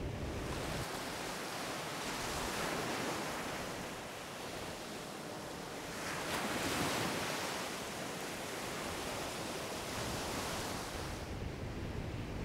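Surf breaking and washing up a sandy beach: a steady hiss that swells with each wave, twice, the second swell, about six seconds in, the louder.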